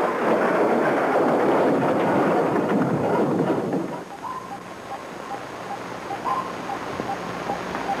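A loud, dense rumbling noise for about four seconds, then dropping away. Under it comes a regular electronic beeping, about two short beeps a second, with a longer, higher tone every couple of seconds, like submarine control-panel instruments.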